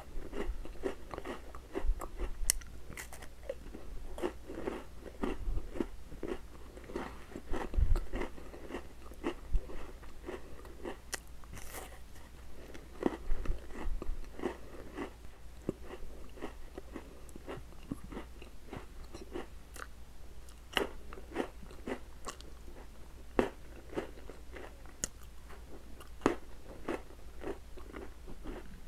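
Close-miked biting and chewing of a crunchy chocolate-covered wafer: crisp cracks and wet chewing sounds come thick and fast at first, then thin out to scattered crunches in the second half.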